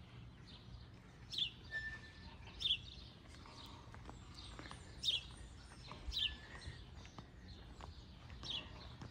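A small bird chirping: short, high notes that fall in pitch, repeated every second or two.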